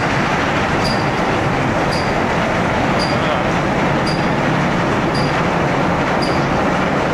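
Automatic car wash running, its tall rotating brushes scrubbing a car: a steady, loud wash of machine and brush noise, with a short high tick repeating about once a second.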